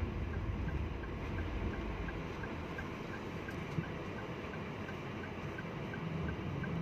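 Low vehicle rumble that eases after about two seconds, with a faint, regular ticking about three times a second.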